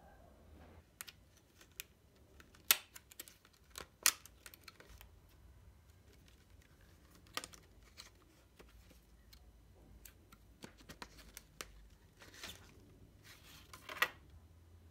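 Clear plastic packaging crinkling and clicking as a Copic Sketch marker box is handled and slid out of its plastic sleeve. Scattered sharp clicks, the loudest about three and four seconds in and near the end, with brief rustling just before the end.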